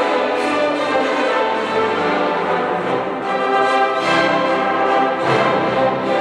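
Youth symphony orchestra playing live: a full string section with brass, holding sustained chords, with new chords struck about four seconds in and again just after five seconds.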